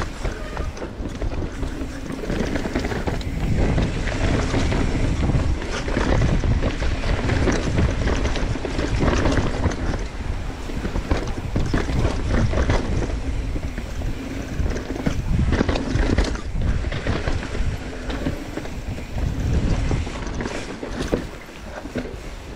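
Wind buffeting the microphone over a mountain bike running fast down a dirt trail, with tyres rolling over dirt and many quick knocks and rattles from the bike over roots and bumps.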